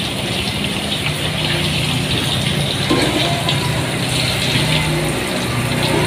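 Banana fritters frying in hot oil in a wok, a steady sizzle, with a steady low hum underneath.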